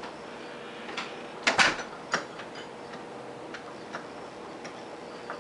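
Scattered light clicks and scuffs from a cat batting at a fuzzy wand toy dragged over carpet. The loudest is a short cluster of clicks about a second and a half in, with a single sharper click about half a second later.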